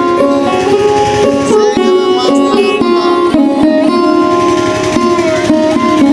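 Background music: an Indian-style melody on a plucked string instrument such as a sitar, with sustained notes and pitch slides.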